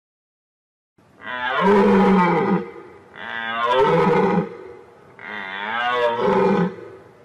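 Deer calling: three long calls with a wavering pitch, each about a second and a half long, the first beginning about a second in.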